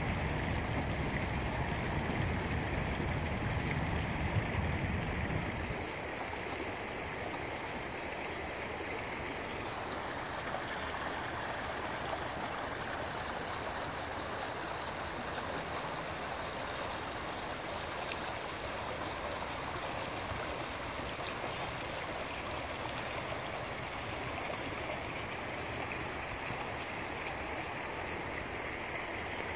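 Shallow stream flowing over rocks, a steady rush and gurgle of water with a small cascade spilling between boulders. A low rumble sits under it for the first six seconds, then stops.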